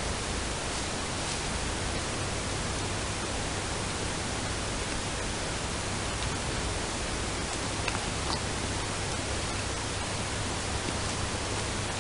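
Steady, even hiss of background noise, with a few faint clicks about eight seconds in.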